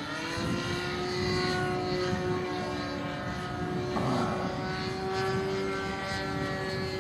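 Saito 120 four-stroke glow engine of an RC aerobatic model plane running in flight, a steady propeller drone that rises a little in pitch in the first second and then holds, with a brief hiss about four seconds in.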